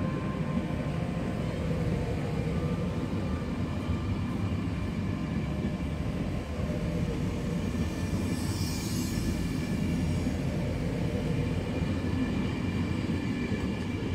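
InterCity 225 Mark 4 coaches rolling past as the train pulls out of the station: a steady rumble of wheels on rail. A brief hiss rises over it about eight or nine seconds in.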